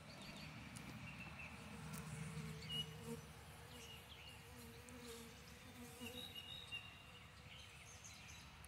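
Faint buzzing of a bee in flight that wavers and comes and goes, with birds chirping in the background.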